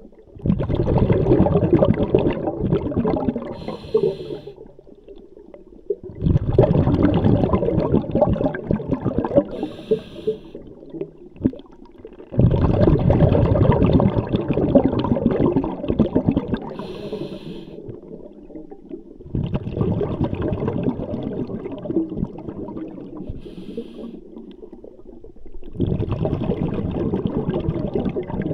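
Scuba diver breathing through a regulator, heard underwater: a short hiss on each inhale, then a long rumbling rush of exhaled bubbles that fades away. The cycle repeats about every six seconds, five breaths in all.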